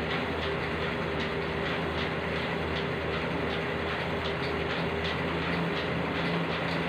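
Home elliptical cross-trainer in use: a steady whirring hum with light clicks that repeat with each stride.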